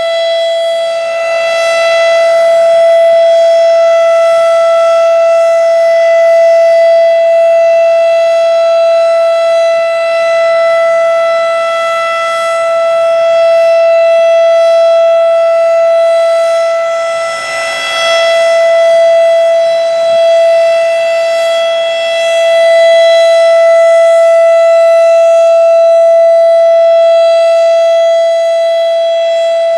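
Federal Signal RSH-10A Thunderbeam tornado siren sounding the Alert signal: one very loud, steady tone held at constant pitch. It swells and fades every few seconds as the reflector disc inside the mesh housing turns, with a brief drop about 17 seconds in.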